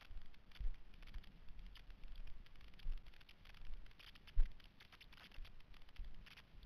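A hiker's footsteps scuffing and crunching on sandstone slickrock, mixed with rustling and bumps from the moving GoPro, in an irregular run of soft thumps and scratchy ticks. One sharper knock comes about four and a half seconds in.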